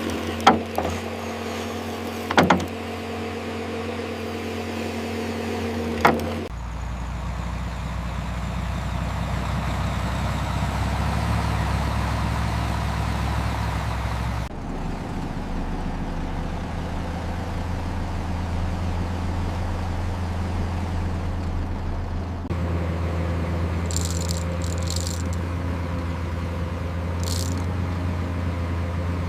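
Heavy construction-machine engine running steadily, its note changing abruptly several times, with a few sharp metallic clanks in the first six seconds and brief high-pitched hisses near the end.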